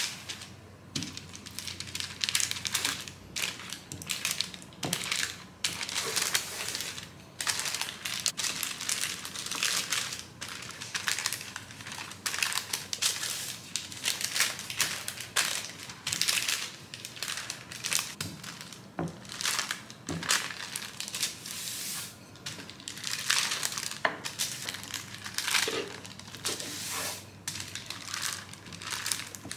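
Wooden rolling pin pressing and rolling pie-crust dough between sheets of baking paper: the paper crinkles and rustles with each of many repeated strokes.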